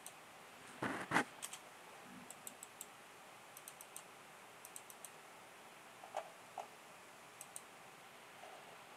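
Computer mouse clicks and a few keyboard taps, coming in small pairs and clusters, with a brief louder rustle about a second in.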